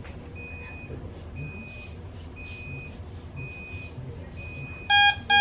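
Hospital bedside equipment alarm beeping: a steady high beep repeating about once a second. Near the end, a much louder, lower beep made of several tones cuts in and starts to repeat.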